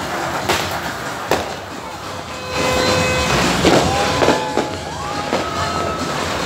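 Firecrackers going off: two sharp bangs in the first second and a half, then a louder, denser din of noise with some whistling tones that glide in pitch.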